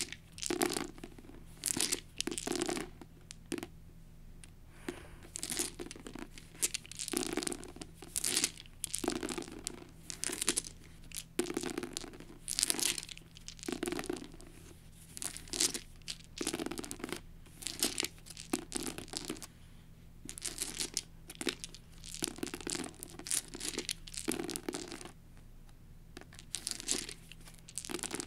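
A handful of eight translucent plastic six-sided dice rattled in the hand and rolled onto a book, clattering to a stop, again and again. Each roll is a short cluster of clicks, one every second or two.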